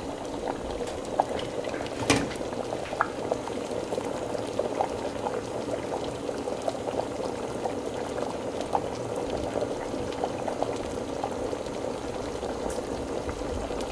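A pot of thick Jamaican red peas soup boiling, with a steady bubbling and many small pops breaking the surface. One sharper click comes about two seconds in.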